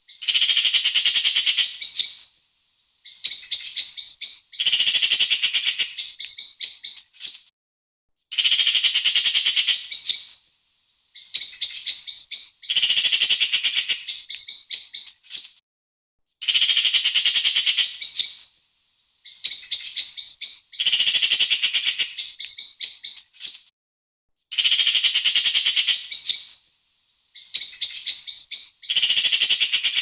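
Magpie chattering: harsh rattling runs of rapid, repeated notes in bouts of one to three seconds with short gaps. The same pattern of bouts comes round about every eight seconds.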